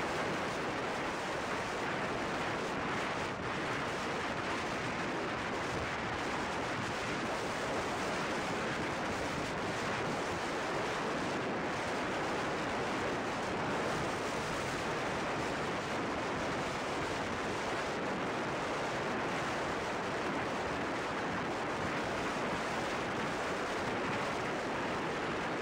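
Steady rush of wind over the microphone of a helmet-mounted camera on a motorcycle ridden at about 90 km/h, drowning out any engine note.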